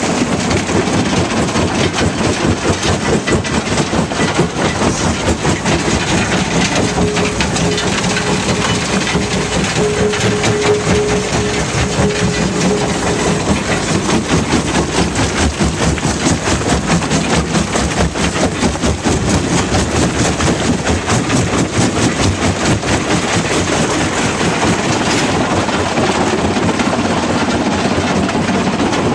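Fintec 1107 mobile jaw crusher running under load as it crushes limestone: a loud, steady machine din with continuous rapid clatter and grinding of rock being fed over the grizzly and broken in the jaw.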